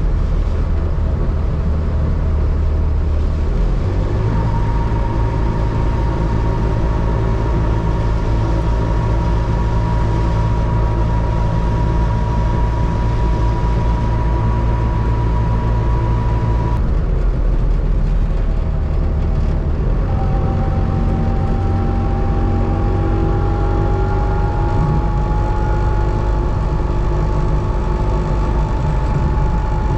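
The Trabant 601S's air-cooled 594 cc two-stroke two-cylinder engine running under way, its note climbing slowly as the car gathers speed. The whine drops out about 17 seconds in and comes back at a lower pitch about three seconds later, as with an upshift.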